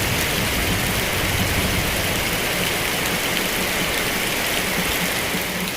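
Heavy rain falling steadily, a dense even hiss of raindrops.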